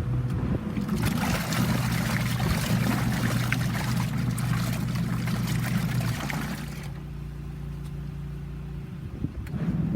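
Twin-tub portable washing machine running a wash, its motor humming steadily under the sound of churning, splashing water. About seven seconds in, the water sound drops away for a couple of seconds while the hum carries on, then it comes back near the end.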